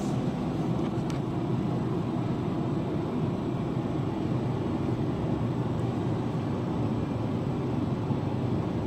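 Steady low rushing room noise from ventilation, unchanging throughout.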